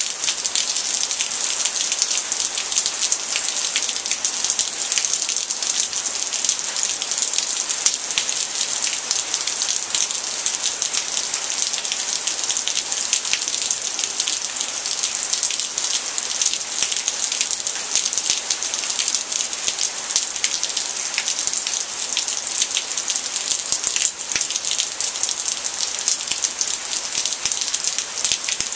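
Heavy rain pouring steadily, a dense hiss of drops striking surfaces with many fine patters.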